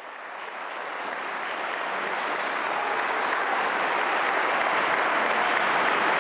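Crowd applauding, a dense clapping that swells in over the first few seconds and then holds steady.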